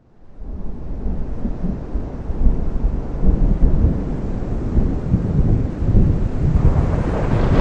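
Thunder rumbling low and continuously over rain, fading in at the start and swelling louder about seven seconds in.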